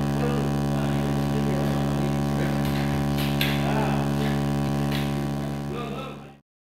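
A steady low machine hum with faint voices and a few sharp metal clinks from steel pry bars levering a heavy lathe, fading out near the end.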